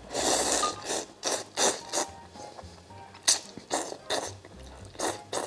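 A person slurping instant noodles: one long slurp at the start, then a string of short, sharp slurps.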